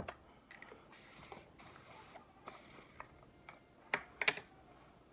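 Light clicks and taps of makeup powder and tools being handled, with a faint soft brushing hiss about a second in. Two sharper clicks come near the end.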